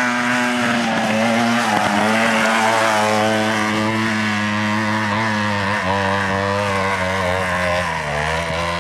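Dirt bike engine running hard at high revs under load up a steep, loose hillclimb, a steady droning note whose pitch slowly sags as the engine labours on the slope.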